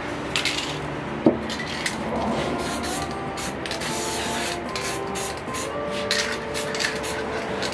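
Short hisses from an aerosol spray-paint can, several in a row, with a gloved hand brushing over the paper. Background music with held notes plays underneath.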